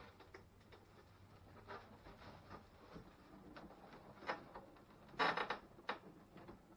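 Rummaging through a packaging box for loose nuts and washers: faint rustling and handling noises with scattered clicks, and a quick run of clicks, the loudest, about five seconds in.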